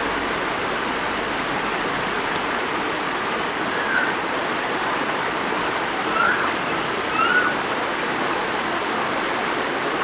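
Shallow stream water rushing steadily over a low rocky riffle, with a few short high-pitched sounds over it around four, six and seven seconds in.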